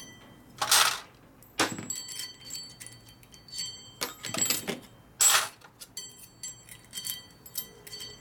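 Small loose steel transmission parts clinking and rattling as they are picked through in a parts tray, with brief high ringing from the struck metal pieces. There are a few louder rattles of handled parts, about a second in and again around four to five seconds in.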